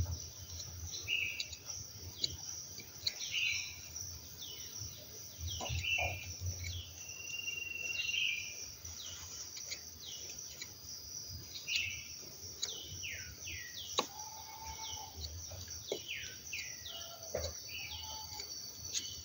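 Birds calling over and over with short, falling chirps over a steady, high insect drone. Now and then comes a scrape or a sharp knock from a knife scraping rotten wood out of a cavity in a durian trunk.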